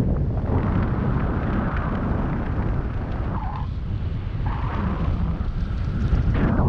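Wind rushing past a paraglider in flight and buffeting the camera microphone: a loud, unsteady low rumble.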